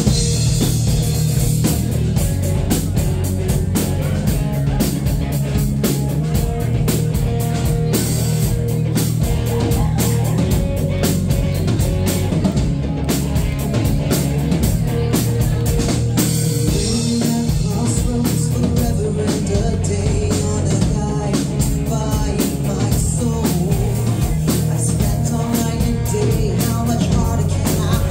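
Live rock band playing a song with electric guitars, a drum kit and keyboards, and a woman singing lead.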